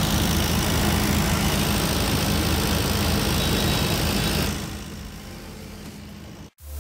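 Busy street noise dominated by an engine running steadily at idle, with a constant low hum. About two-thirds through it drops to a quieter street hum, then cuts out briefly near the end.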